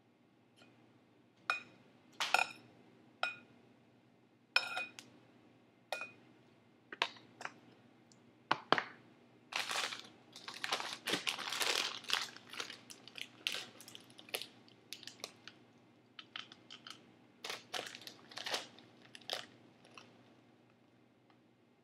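A utensil clinking against a ceramic bowl several times, each knock ringing briefly, then a few seconds of crinkling and rustling and more scattered clicks as ingredients are layered into the bowl.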